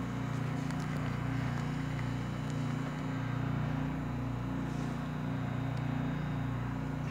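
Steady low hum of the SST 2200 vacuum furnace's two mechanical vacuum pumps running as they pump the chamber down.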